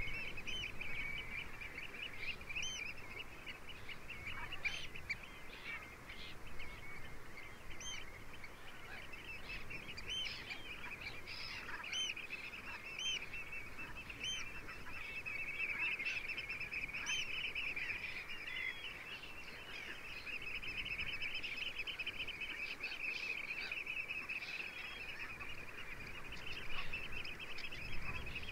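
Dense, continuous chorus of a large flock of geese calling, with many short, higher whistled bird calls over it.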